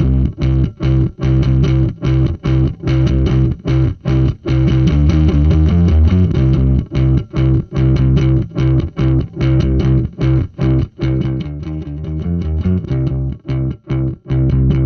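Electric bass guitar through a hand-built preamp and distortion pedal, a version of the Tapco/Intersound IVP instrument voicing preamp, playing a distorted riff. The notes are choppy, each cut off by a brief gap.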